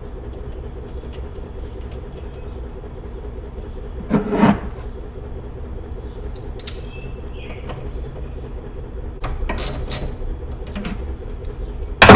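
Small metal clicks of a 10 mm bolt being put back on and tightened at an engine's starter solenoid with a hand tool, over a steady low hum. There is a short louder sound about four seconds in and a sharp loud knock at the very end.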